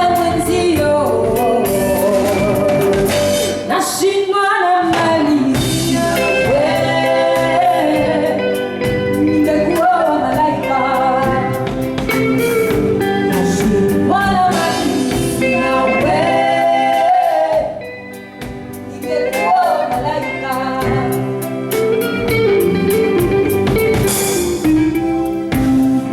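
A live band plays a song with a sung lead vocal over guitar and drums. The band drops back briefly about two-thirds of the way through before coming in again.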